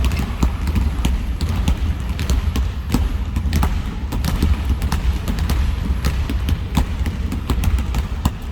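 Many basketballs dribbled at once on a gym floor: a dense, irregular patter of overlapping bounces.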